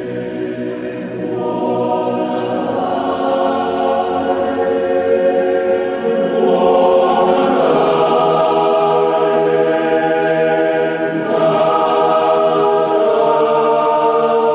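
Choir singing long held chords in a church, swelling louder about two seconds in and again midway.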